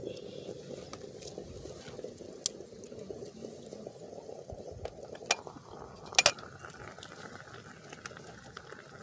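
Steady rushing, bubbling water sound with a few sharp clicks and snaps; a little past the middle a higher hiss joins in.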